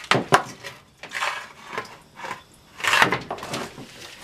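Kitchen handling sounds: a few sharp knocks, then short crinkly rustles as pork spare ribs are moved about in a foil-lined baking pan.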